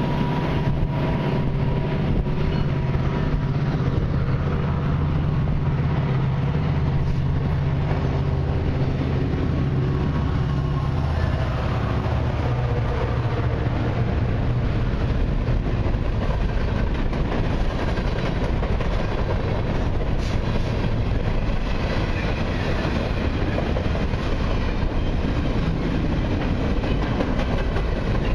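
Freight train passing close by on the track. For the first dozen seconds the diesel locomotives' engines are loud and steady; after that the even rumble and clatter of autorack and covered hopper cars rolling over the rails takes over.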